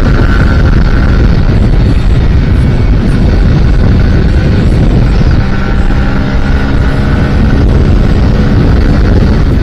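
Heavy wind rushing over the microphone of a motorcycle cruising at speed, with the bike's engine running steadily underneath.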